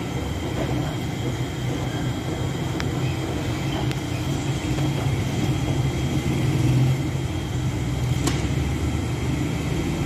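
Gas-fired bread oven running with a steady low rumble, with a couple of faint light clicks.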